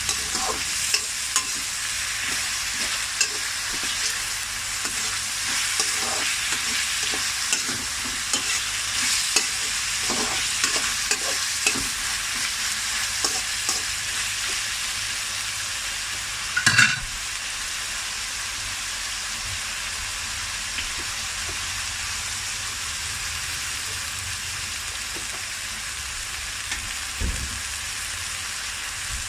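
Food sizzling in a hot pan while a utensil stirs and scrapes through it, with frequent clinks over the first half and one louder clank about 17 seconds in; after that mostly a steady sizzle.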